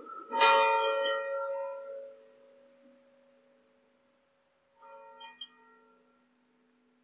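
Church bell tolling slowly, a memorial toll: one loud strike about half a second in that rings out over a few seconds, then a fainter strike near five seconds, with the bell's low hum lingering between.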